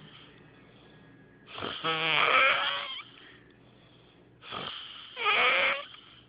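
A person snoring with an unusual sound: two long snores about three seconds apart, each a loud, wavering pitched tone lasting about a second and a half, with quiet breaths between them.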